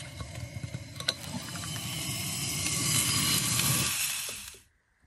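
A few sharp clicks as a gas bottle's valve and hose fittings are handled, then sausages sizzling in a frying pan over the gas burner, growing louder before fading out near the end.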